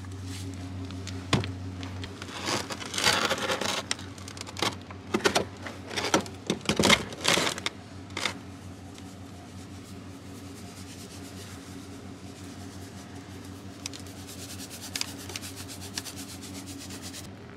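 Knocks and rustling as a cardboard table-salt canister is handled and opened. About halfway through these give way to quieter, scattered ticking as salt is shaken out onto the ice-crusted deck of the kayak to melt the ice.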